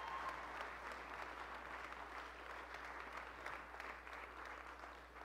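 A small congregation applauding, the clapping fading gradually away.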